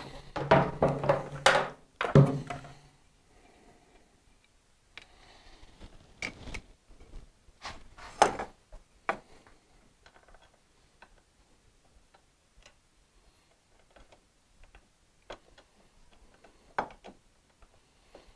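Hand tools and metal parts being handled while a brake caliper is fitted to a motorcycle's front fork: a louder clatter in the first two or three seconds, then scattered sharp clicks and knocks with pauses between them.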